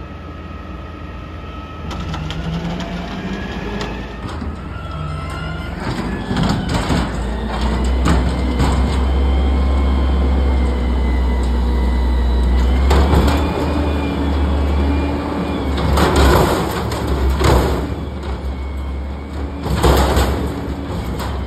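Peterbilt 320 front-loader garbage truck lifting a dumpster on its forks: the engine revs up to drive the hydraulics, with a wavering hydraulic whine over it. In the last third come several loud bangs as the dumpster is tipped and knocked at the top of the lift to empty it into the hopper.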